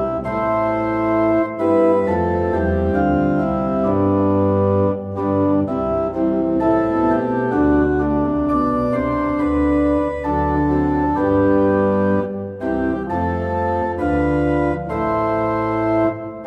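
Church organ playing a sequence of sustained chords, with brief breaks between phrases about five seconds in and again near the end.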